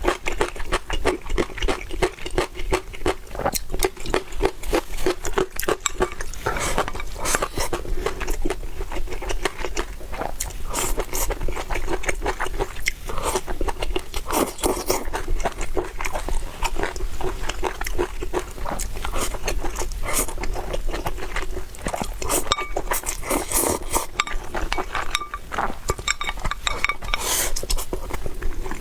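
Close-miked chewing and mouth sounds of a person eating: a dense run of small clicks, with louder crunchy bites every few seconds.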